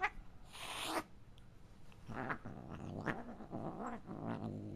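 An irritated house cat hisses once, briefly, about half a second in, then growls in several low, wavering stretches.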